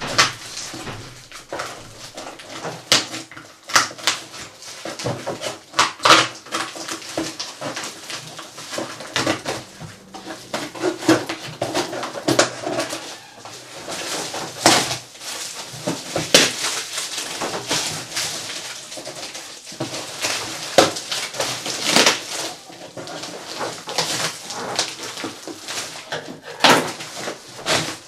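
Scissors snipping and slitting through packing tape and plastic wrap on a cardboard parcel, with plastic crinkling and the box scraping as it is handled. The sound is a string of short, sharp crackles and snips.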